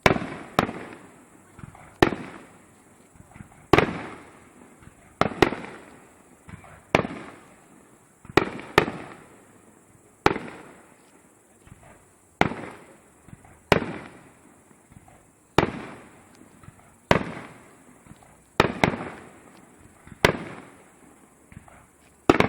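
Fireworks shells bursting in a steady series, about one sharp bang every second and a half. Each bang trails off in a fading rumble.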